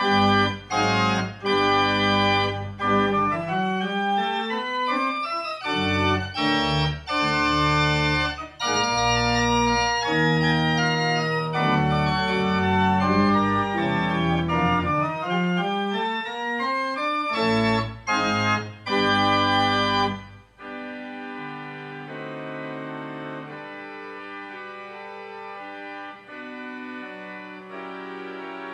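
Church organ played solo: loud full chords over deep pedal bass, with quick rising and falling runs. About twenty seconds in it drops suddenly to a soft registration of quiet held chords without the deep bass.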